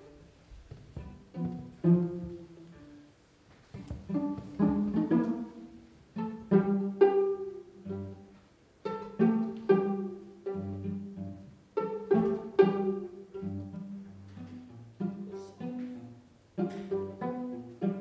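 Piano trio of violin, cello and piano playing contemporary chamber music: groups of sharply attacked notes that ring and fade, separated by short pauses, over held low cello notes.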